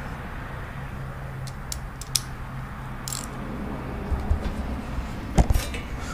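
Steady low hum of workshop room tone, with a few faint clicks and a short hiss as small hardware is handled. A cluster of knocks comes about five and a half seconds in.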